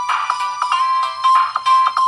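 Samsung Gravity 2 (SGH-T469) playing one of its built-in ringtones through its small speaker. It is a fast electronic melody of short notes with a couple of held notes in the second half, thin, with no low notes.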